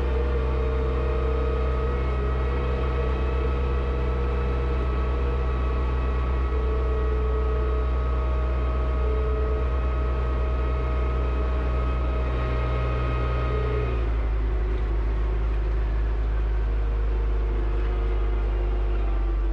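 Diesel engine of a front-loader tractor running steadily with a deep rumble, its note shifting abruptly about two-thirds of the way through.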